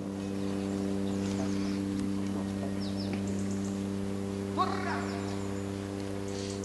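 A steady low electrical hum with faint high chirps over it. About two-thirds of the way in comes a short shout, which fits the handler's command sending the dog running ahead.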